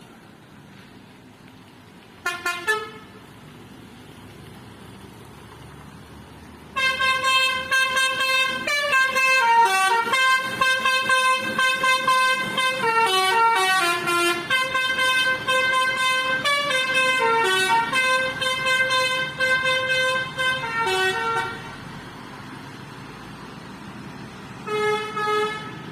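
Telolet bus horn, a multi-note horn playing a tune. A short toot about two seconds in, then a long melody of stepping notes for about fifteen seconds, and another short toot near the end.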